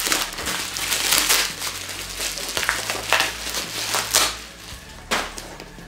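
Plastic bubble wrap crinkling and rustling in bursts as it is pulled off a small boxed item, easing off after about four seconds, then a single sharp tap near the end.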